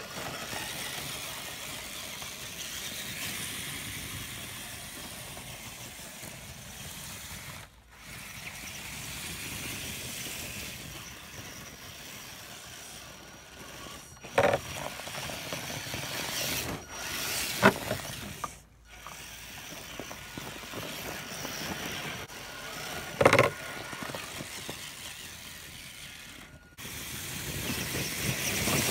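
Exceed Mad Torque 8x8 RC crawler truck's electric motor and gear train running steadily as it crawls over rough ground, with a few sharp knocks. The sound breaks off briefly three times.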